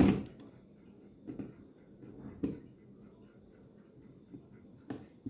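Small metal clicks and taps from fingers working on a brass Seikosha 8-day clock movement while a side nut is loosened: a sharp click at the start, then a few faint ticks spread through the rest.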